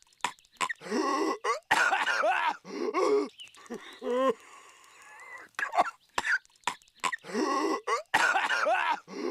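Patrick Star, the cartoon starfish, coughing and hacking violently in repeated harsh fits with short gasping gaps. The same stretch of coughing repeats about every six and a half seconds, as a loop.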